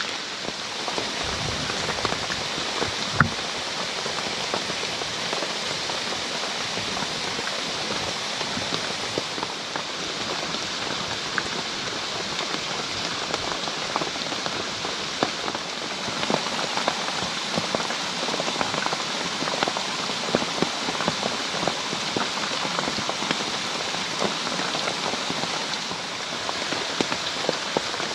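Rain falling steadily: an even hiss with many individual drops ticking, and a single louder knock about three seconds in.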